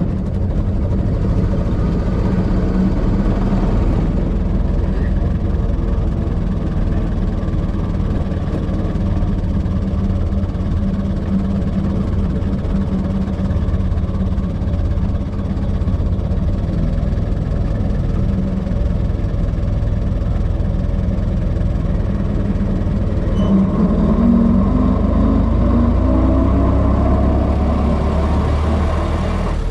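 1926 Ford Model T's four-cylinder side-valve engine running steadily under way. About three-quarters of the way through, its pitch rises and keeps climbing.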